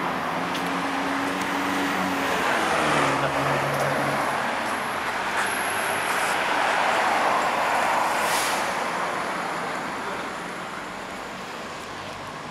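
Street traffic: cars passing on the road, swelling louder twice as vehicles go by, with a low engine drone in the first few seconds.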